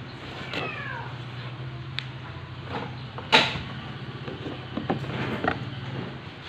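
Knocks and taps of metal on a stainless steel window grill being fitted by hand, the loudest a sharp knock about halfway through. A short falling squeal comes near the start, over a steady low hum.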